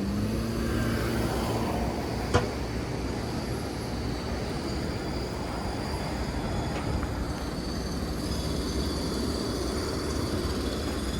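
Steady outdoor street noise of passing traffic, with one sharp click about two and a half seconds in.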